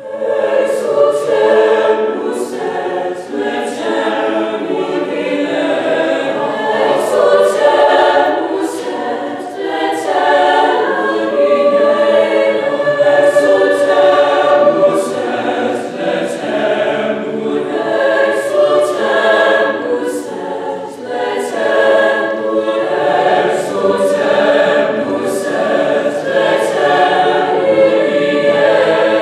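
Mixed chamber choir singing a slow choral piece, many voices holding and moving chords together.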